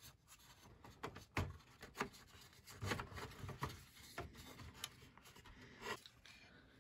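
Faint clicks, taps and rubbing of plastic model-kit parts being pressed and slid together, a few small clicks scattered through.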